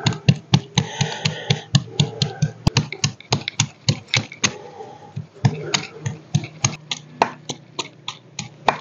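Wooden pestle pounding ginger in a dori mortar, a steady run of dull strokes about three to four a second as the ginger is crushed to a paste.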